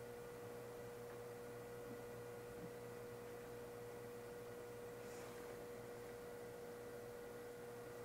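Faint, steady electrical hum from a variac-fed magnetron filament test setup, with one clear steady tone over a lower mains hum.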